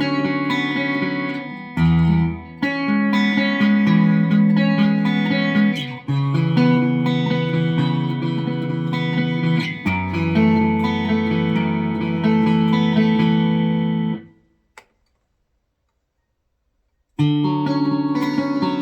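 Samik Greg Bennett MB-1 electric guitar played clean through a Marshall DSL5CR amp, with chords ringing and changing every second or two. The playing stops about fourteen seconds in. After a few seconds of silence broken by one faint click, it starts again near the end.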